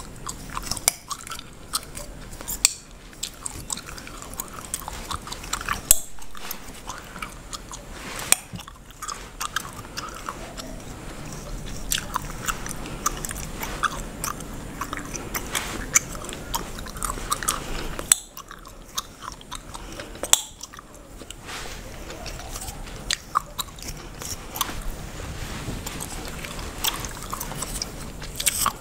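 Bubblegum chewed and cracked close to the microphone: a run of sharp, irregular wet pops and clicks, with soft scratching of a tail comb on an oiled scalp beneath.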